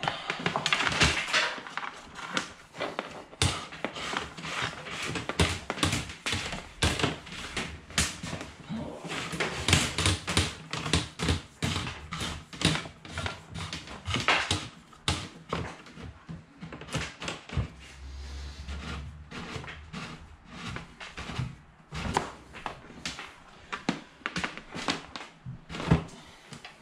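Irregular run of clicks, scrapes and rustles as a light's flex is pulled up by a cable tongue through a very tight gap behind a kitchen wall cupboard, with hands knocking against the cupboard.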